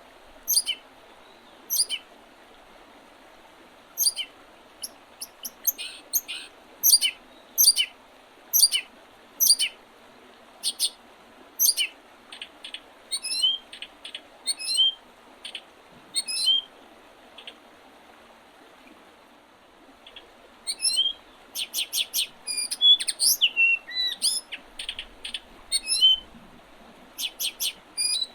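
Small songbirds chirping and singing in short, sharp repeated notes and quick trills, thinning out in the middle and growing busier in the second half, over the steady rush of a river.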